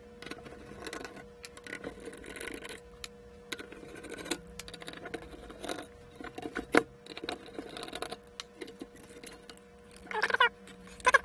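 Small clicks, scrapes and rustles of hands working plastic wire-harness connectors and a circuit board, as the connectors are unplugged and the board is lifted off. A short squeak-like sound comes about ten seconds in.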